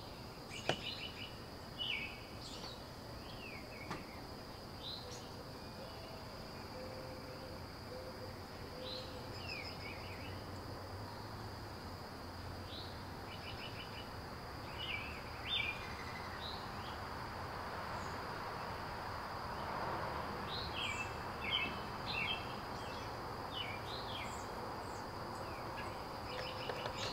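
Outdoor ambience: a steady high-pitched insect drone with birds chirping on and off.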